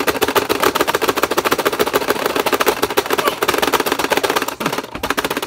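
Pie Face Showdown toy game's mechanism clicking rapidly, a fast even rattle of plastic clicks that stops just before the end.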